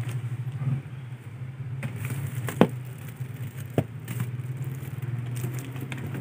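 Steady low mechanical hum, with two sharp knocks a little over a second apart as cigarette cartons are handled.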